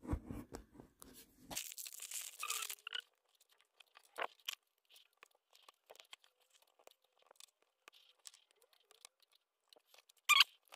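A small plastic polybag of Lego pieces being torn open and crinkled, followed by scattered small clicks and taps as the plastic pieces are handled and pressed together. One short, louder sound comes near the end.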